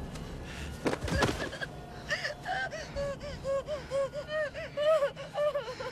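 A woman's short, choked gasping cries, repeated about three times a second at a steady pitch, after a couple of hard thuds about a second in. It is a stabbing victim struggling and failing to scream.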